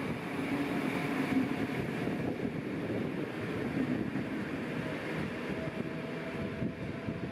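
NS Mat '54 'Hondekop' electric multiple unit moving slowly along a station platform: steady rumble of wheels on the rails, with a faint steady whine joining about five seconds in.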